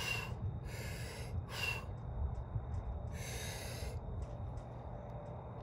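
A man taking loud, sharp breaths as he readies himself to lift a loaded barbell: three quick ones in the first two seconds and a longer one about three seconds in, over a steady low rumble.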